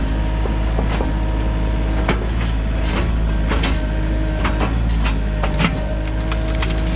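Sany mini excavator engine running steadily under work, with a steady whine, while sharp cracks and clicks come every second or so, the sound of the machine pushing through and breaking small trees.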